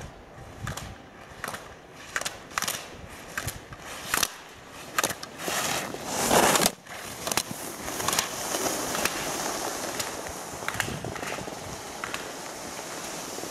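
Slalom skier's skis carving and scraping on hard snow, with a run of sharp clacks as slalom gate poles are knocked aside, about one or two a second. About six seconds in comes a loud rush of skis scraping past, then a steady hiss of snow.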